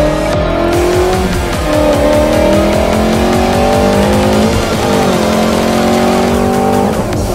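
Shelby GT350's 5.2-litre flat-plane-crank V8 pulling hard under acceleration, its revs climbing and dropping back at each upshift several times.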